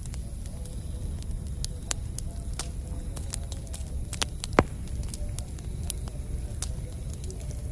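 Campfire burning: wood crackling with scattered sharp pops over the low rumble of the flames, one pop louder than the rest a little past halfway.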